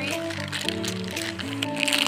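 Background music with held notes and a simple melody.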